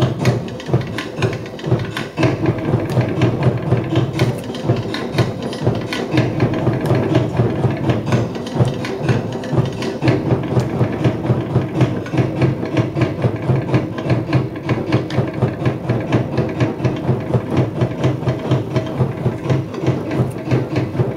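Tahitian drum music for ʻōteʻa dancing: wooden slit drums beaten in a fast, steady, driving rhythm over deep drum beats.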